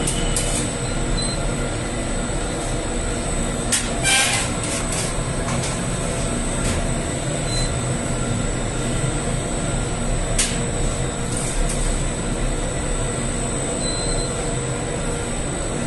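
Bakery flatbread machine running, its conveyor belt carrying the dough sheet under a roller and star-wheel docker: a steady mechanical rumble with a thin high whine and a few sharp clicks, the strongest about four seconds in.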